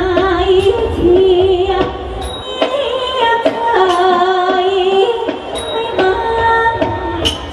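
A woman singing in Thai likay style through a headset microphone, holding long notes with a wavering vibrato, over instrumental accompaniment with regular percussion strikes.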